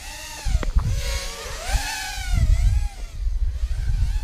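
Walkera Rodeo 110 quadcopter's brushless motors and propellers whining, the pitch swinging up and down as the throttle changes. Bursts of low rumble run under the whine from about half a second in.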